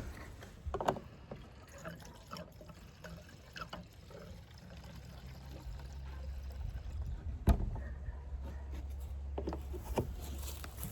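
Gasoline trickling from a gas can into the fuel tank of a small two-stroke backpack blower, with a single sharp click about seven and a half seconds in.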